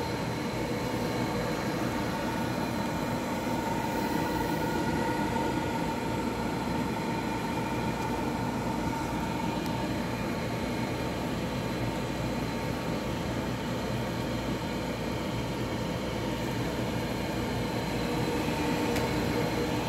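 GE window air conditioner running just after being switched on following two days unused: a steady rush of fan air with a constant hum and a few steady whining tones.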